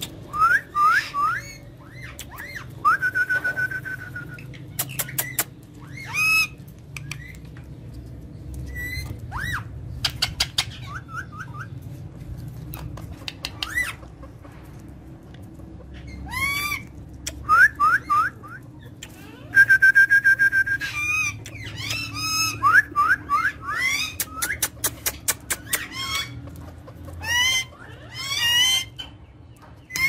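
Caged parakeets calling: short rising chirps and squawks in quick runs, with a held whistle twice and several fast rattling series.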